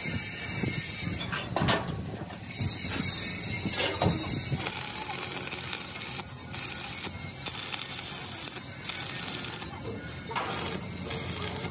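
Stick (arc) welding on a steel truck-chassis beam: the arc crackles and hisses in spells, breaking off briefly a few times between runs. A couple of sharp metal knocks come in the first few seconds, before the welding starts.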